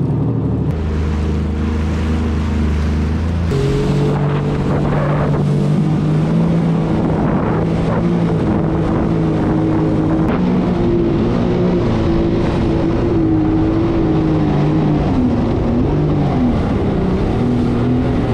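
Jet ski engine idling, then throttled up about three and a half seconds in and running as the craft pulls away. The engine pitch climbs slowly, then wavers up and down near the end.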